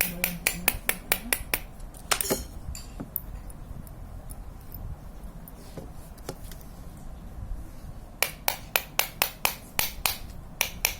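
Bicycle freewheel ratchet clicking in quick, even ticks, about four to five a second, as the freewheel body is turned. The ticking runs for the first second and a half and starts again near the end, with a single clatter of handling just after two seconds.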